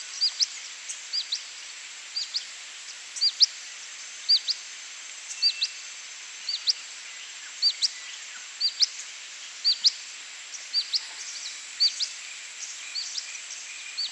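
A bird calling over and over, a high two-note chirp about once a second, over a steady background hiss.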